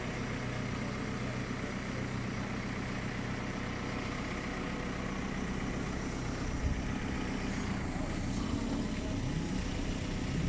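JCB telehandler's diesel engine running steadily, with a short knock about six and a half seconds in and the engine note rising near the end.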